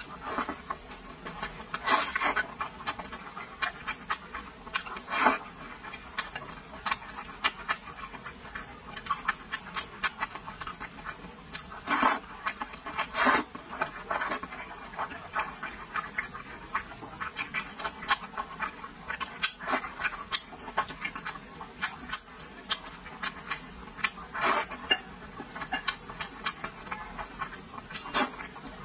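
Close-miked eating of braised pork ribs and wide noodles: wet chewing and lip smacks as many short, irregular clicks. A wide noodle is slurped into the mouth near the end.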